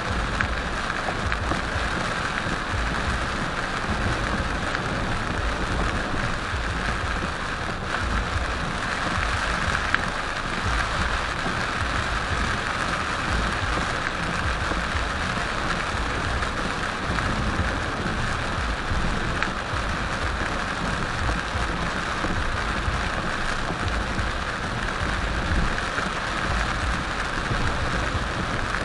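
Heavy rain pelting a car's roof and windshield, heard from inside the cabin as a dense, steady hiss over a low rumble from the moving car.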